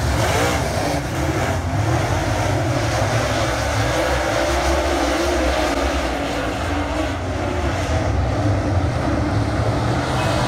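A pack of dirt late model stock cars racing, their V8 engines running hard together in a loud, steady din, with individual engine notes rising and falling as the cars go through the turns and past.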